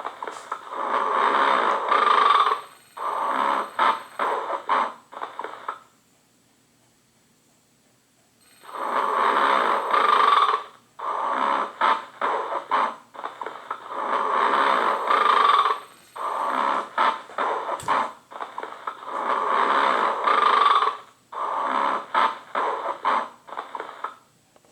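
A novelty pig landline phone ringing with a recorded snoring sound as its ringer: loud snores one after another, each a second or two long. There is a pause of about two seconds a quarter of the way in, and then the snoring starts again and runs on.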